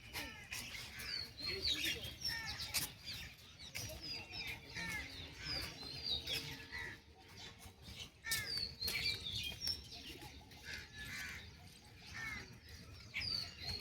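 Many birds chirping: a busy run of short, quick chirps that overlap one another, with scattered sharp clicks among them.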